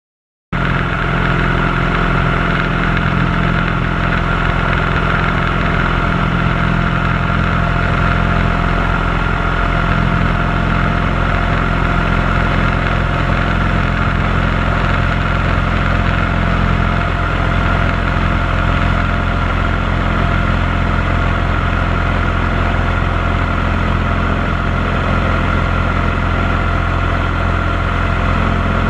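Cessna light aircraft's piston engine and propeller droning steadily at a constant pitch. It cuts in suddenly about half a second in.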